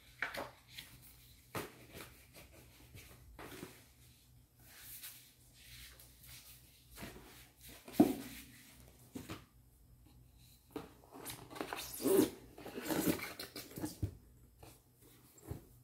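Handling of product packaging: a paper manual's pages rustling and cardboard inserts pulled from a box, with a sharp knock about eight seconds in. Near the end, a burst of rustling, scraping and knocks as a hard-shell carrying case is lifted out of the box.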